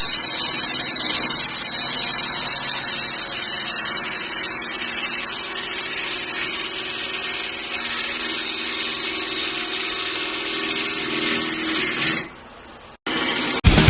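A lathe cutting a spinning workpiece: a steady, high-pitched cutting noise that drops off suddenly near the end.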